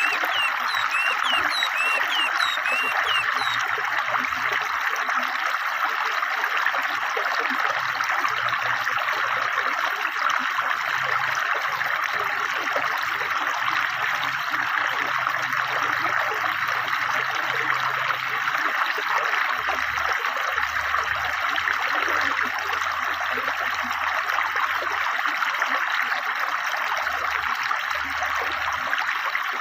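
Fast-flowing river water rushing steadily over stones, with a few short forest-bird chirps in the first few seconds.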